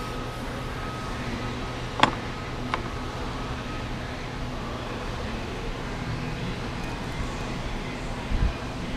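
Hands working wires and a crimping tool over a steady low background hum. There is a sharp click about two seconds in, a fainter click soon after, and a couple of low bumps near the end.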